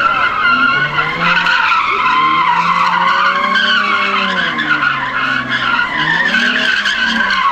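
A Nissan 350Z drifting, its tyres squealing continuously with a wavering pitch while the engine revs rise and fall underneath.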